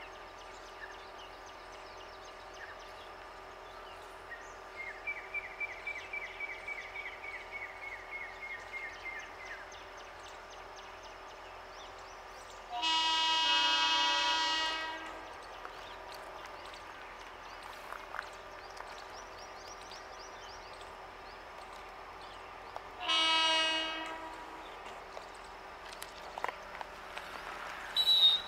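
Horn of the Rohtak–Rewari CNG DEMU, a diesel–CNG dual-fuel train, sounding one long blast of about two seconds and then a shorter blast about ten seconds later, over the steady hum of the idling train. A rapid series of chirps, falling slightly in pitch, runs for about five seconds before the first blast, and there is a sharp knock near the end.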